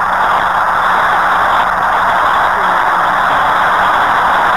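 Shortwave receiver static from a remote amateur radio transceiver tuned to 7.049 MHz in the 40-metre band, streamed over the internet: a steady hiss with the lows and highs cut off, no signal audible.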